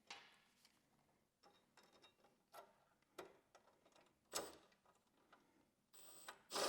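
Scattered light clicks and taps of a screw and hand tool being handled while a floorboard panel is fastened to the frame, with one sharper click about four and a half seconds in and a brief louder rattle near the end.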